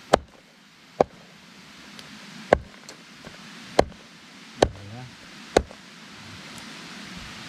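A blade chopping on wood: six sharp strokes, roughly a second apart, over a steady hiss.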